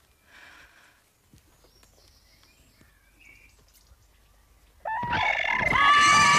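A crowd bursts into loud cheering about five seconds in, after a near-quiet stretch: many voices at once, with high, held animal-like cries among them.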